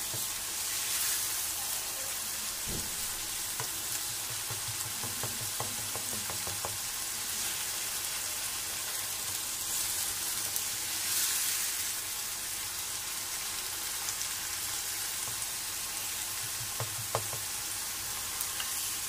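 Onion and tomato paste with cumin seeds sizzling steadily in hot ghee in a non-stick frying pan, the masala being fried on high flame. It is stirred with a spatula that gives a few light knocks and scrapes against the pan.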